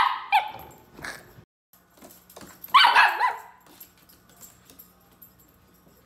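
Miniature schnauzer puppy complaining: a sharp bark right at the start and two smaller ones just after, then about three seconds in a longer, wavering bark that bends up and down in pitch.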